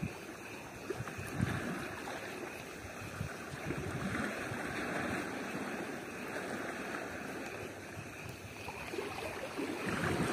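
Shallow sea water lapping and sloshing in small waves, a steady wash of water noise.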